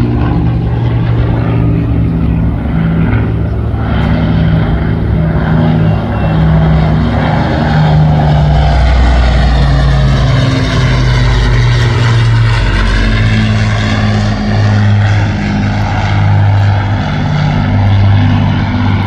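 Piston-engined Second World War propeller aircraft of the Battle of Britain Memorial Flight flying a low display pass. The engines drone steadily, and their tone sweeps down and back up around the middle as the aircraft goes by.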